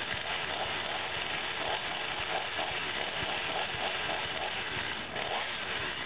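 A small engine running steadily at a distance, with a rough, even drone.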